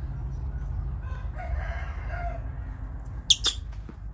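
A rooster crows once in the background, starting about a second in. Near the end come two short, sharp sounds a split second apart, louder than the crow, over a steady low rumble.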